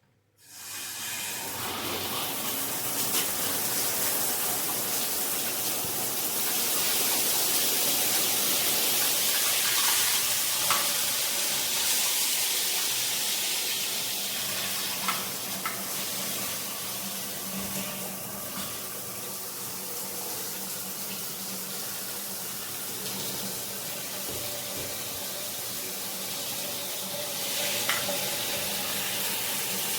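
Water spraying steadily from a GRICH 2-in-1 rainfall and handheld shower head, an even rushing hiss that starts abruptly about half a second in.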